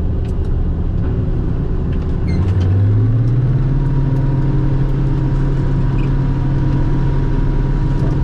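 Tractor engine running a forage harvester while chopping corn, its engine speed rising about two and a half seconds in and then holding steady, with a thin whine coming in shortly after.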